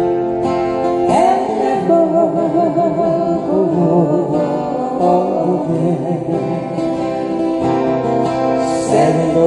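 Several acoustic guitars strumming together with a wavering melody line carried over the chords, an instrumental passage between sung lines.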